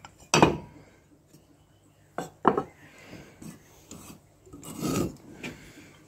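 Metal ingot molds and freshly cast copper ingots clanking and scraping on a block slab as the molds are handled with tongs. A sharp clank about half a second in, two more close together near the middle, and a longer rattling scrape near the end.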